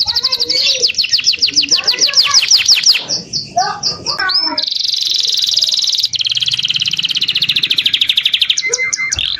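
Several songbirds singing at once from a bird-tutoring (masteran) song recording: long, fast, high-pitched trills that run almost without pause. A rapid series of repeated sweeping notes comes in the first few seconds, with lower chattering notes mixed in around the middle.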